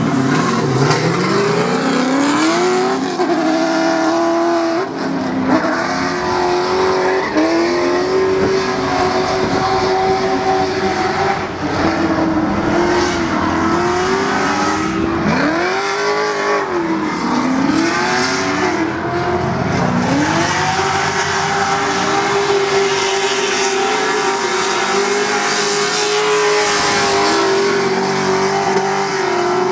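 Drift car engine accelerating hard, then held high in the revs through a long slide, its pitch dipping and climbing again and again as the throttle is worked, over the hiss of spinning tyres.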